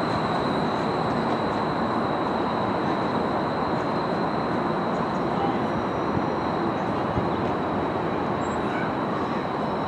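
A 2002-built Škoda 10T streetcar rolling slowly into a stop, with a steady rumble of wheels and running gear. A constant high-pitched whine runs alongside it.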